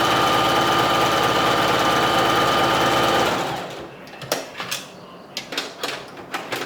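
Heavy-duty sewing machine running fast and steadily, then stopping about three seconds in, followed by a few light clicks and taps.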